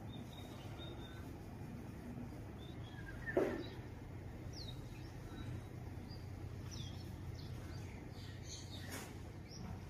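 Birds chirping over a steady low hum. About three seconds in, one louder short call slides sharply down in pitch, and faint high chirps come and go.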